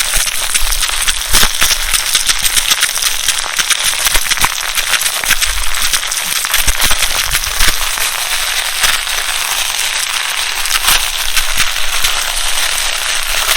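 Mixed vegetables frying in hot oil in a karai, a dense, steady sizzle full of small crackles and pops.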